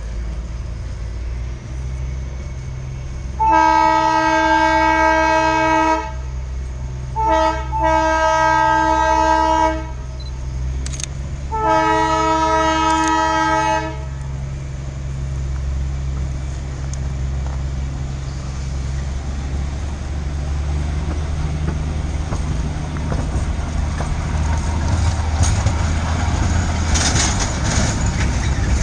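Darjeeling Himalayan Railway narrow-gauge train sounding its horn three times, each blast about two seconds long and the second led by a short toot, over a steady low rumble as the train reverses on a switchback. Toward the end the rumble of the coaches grows as they come close.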